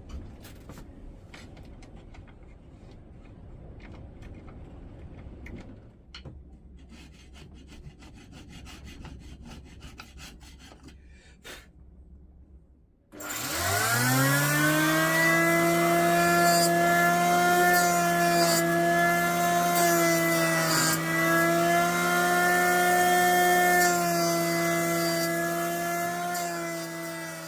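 Faint hand scraping and cutting, then about halfway through a handheld power tool spins up with a rising whine and runs at a steady pitch for about fourteen seconds, working cured expanding foam out of the wooden mallet head's handle hole.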